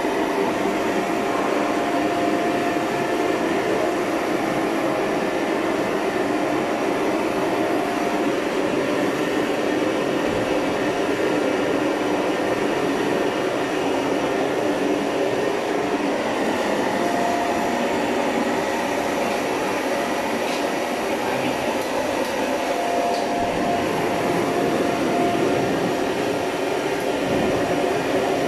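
Gas jets of a commercial double wok burner range burning at high flame: a steady, unbroken rushing noise.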